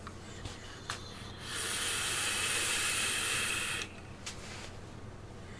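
A drag on an e-cigarette's dripping atomizer: an even hiss of air drawn through the firing coil, starting about a second and a half in and lasting a little over two seconds.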